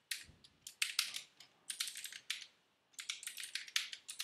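Typing on a computer keyboard: quick runs of keystroke clicks with short pauses between them.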